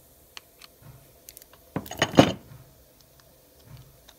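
Grease gun and handling noises while greasing the gears of an air drill: a few light clicks, then a brief clatter about two seconds in as the grease gun is put down on the workbench.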